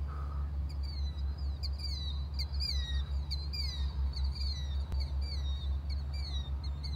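A Maule M-7-235C's engine and propeller at take-off power, heard from afar as a steady low drone. Birds chirp over it in short falling notes, a few each second.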